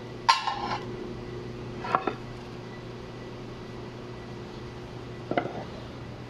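Cast iron pans clanking against each other and the wire shelving as they are handled: three clanks, the first ringing briefly, the others about two seconds and five seconds later.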